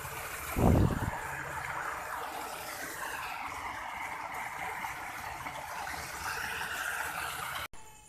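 Water rushing steadily over rocks in a small artificial cascade and stream. A brief low thump about half a second in, and the sound cuts off abruptly just before the end.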